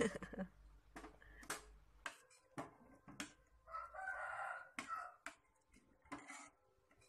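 A metal ladle knocking and scraping against an aluminium pot while meatballs are stirred in water, a series of light irregular clinks. About four seconds in, a rough call about a second long sounds in the background.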